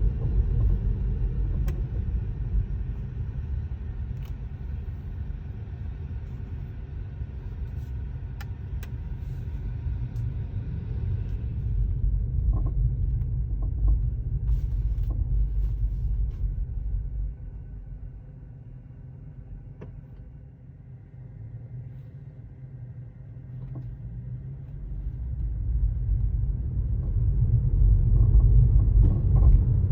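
Low rumble of a Tesla Model 3 on the move, easing off in the middle and building again near the end, with a few brief sharp sounds scattered through it. This is the car whose driver-side front control arm squeaks.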